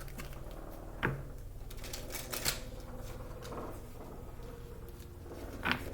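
Tarot or oracle cards being shuffled and handled, a run of small papery clicks and taps with a few sharper snaps.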